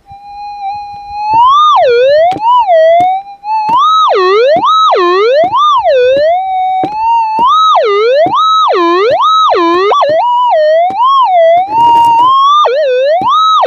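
Minelab GPZ 7000 gold detector's audio tone as its coil is swept back and forth over a target. A steady threshold hum breaks, about a second and a half in, into over a dozen swooping rises and falls in pitch, the signal of a buried metal target still in the bedrock.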